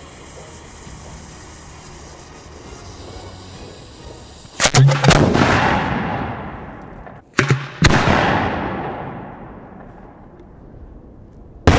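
A 6-inch ball shell fired from its mortar tube: a loud lift-charge boom about four and a half seconds in, fading slowly, then a second loud boom about three seconds later. A sharp bang comes near the end.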